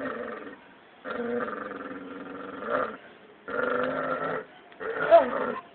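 Dog growling at a cat in a face-off: four long, drawn-out growls separated by short pauses, the last one wavering up and down in pitch.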